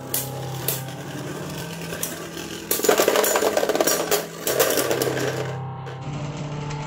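Beyblade Burst spinning tops whirring and clashing in a plastic stadium: a few separate clicks of contact, then a loud, rapid rattling flurry of hits from about three to five and a half seconds in as one top bursts apart.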